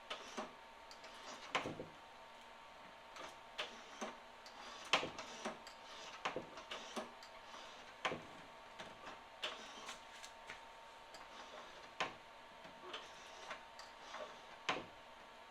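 Auger engagement handle and its new cable on a Troy-Bilt Storm 2840 two-stage snowblower being worked by hand, with the engine off, giving sharp irregular clicks and clacks about once a second as the lever is pulled and springs back.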